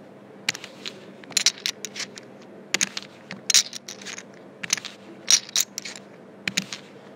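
Poker chips clicking and clacking together in irregular sharp clicks, some single and some in quick little runs, over a low steady hum.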